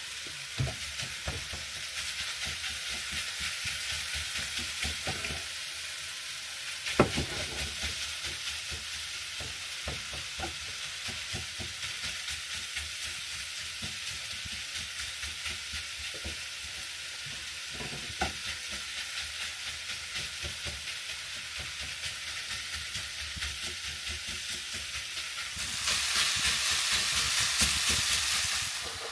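Vegetables sizzling in a frying pan while being stirred, the utensil tapping and scraping the pan, with a sharp knock about seven seconds in. Near the end the hiss grows louder for about three seconds.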